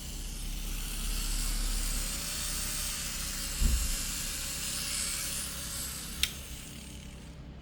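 Small electric motor of a nail drill running, a faint steady whine that comes up about two seconds in and dies away around six seconds, over a steady hiss; a dull knock comes midway and a sharp click near the end.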